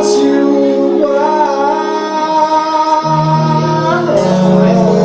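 Live acoustic music: an acoustic guitar played under long held melody notes, with a change of note about three seconds in.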